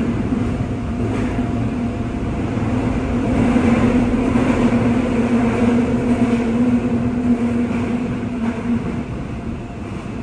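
Seoul Subway Line 5 train running, heard from inside the passenger car: a steady rumble of wheels on rails, louder in the middle, with a steady low hum that stops near the end.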